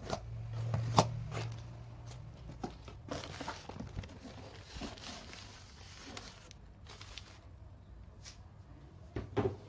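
Newspaper wrapping and a cardboard box being handled: rustling and crinkling with scattered clicks and knocks, a sharp tap about a second in and a short burst of knocks near the end.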